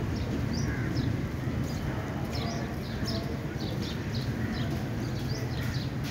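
Birds chirping, many short high calls a second, over a low steady rumble.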